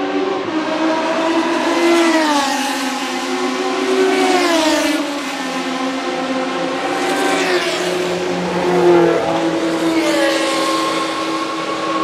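Ligier JS11/15 Formula 1 car's Cosworth DFV 3.0 V8 rolling at pit-lane speed and passing close by. Its revs rise and fall in about four throttle blips.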